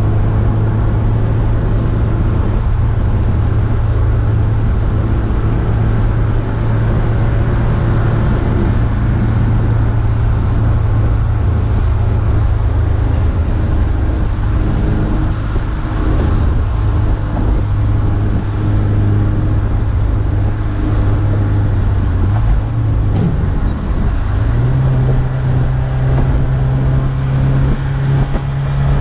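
Alfa Romeo Alfetta engine heard from inside the cabin while driving, holding a steady note. About three-quarters of the way through the note dips briefly, then settles at a higher steady pitch.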